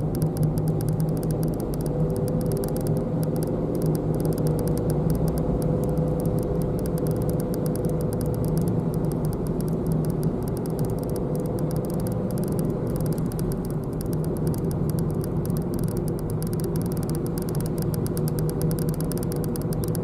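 Car engine and tyre noise heard inside the cabin while driving steadily on a paved road: an even, low hum. A faint higher hum joins it about two seconds in and stops about two-thirds of the way through.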